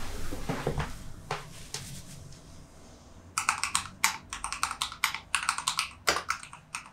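Typing on a Ducky One 2 SF compact mechanical keyboard: a quick run of sharp key clicks starting about three and a half seconds in, after a few seconds of faint rustling.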